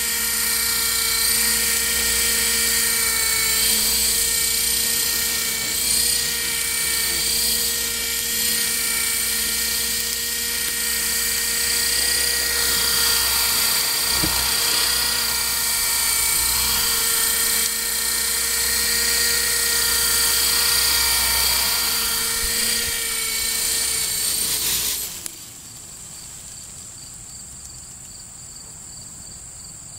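RC model helicopter's motor and rotor whining steadily as it hovers low, the pitch holding even until about 25 seconds in, when the motor cuts and winds down sharply. Faint steady insect chirring is left after it stops.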